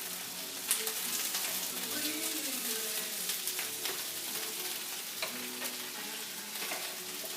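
Flour-dredged chicken pieces frying in olive oil and butter in a pan: a steady sizzle, with a few sharp clicks, the loudest about a second in.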